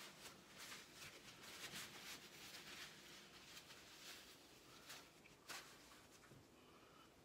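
Faint rustling and handling noises, with one sharper click about five and a half seconds in.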